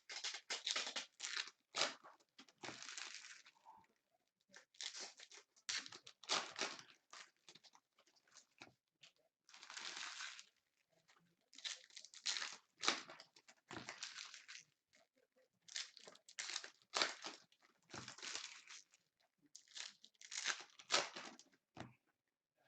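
Trading-card pack wrappers being crinkled and torn open, in many short irregular bursts of crackling plastic.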